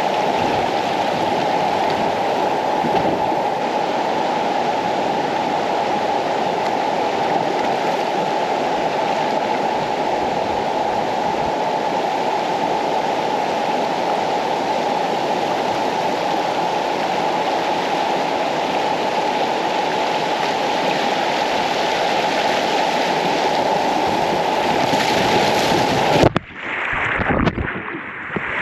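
Steady rush of water through river rapids over rocks. Near the end the sound breaks off abruptly and turns duller and muffled for the last couple of seconds.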